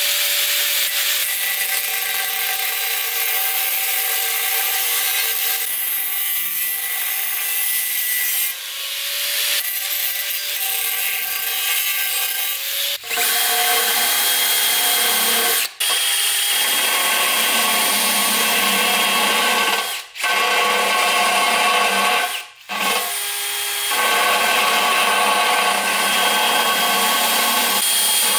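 A small grinder with a sanding disc whining steadily as it grinds an aluminium wheel rim along a crack. About 13 seconds in, the sound gives way to a cordless drill spinning a burr bit that cuts a bevel into the crack, stopping briefly three times.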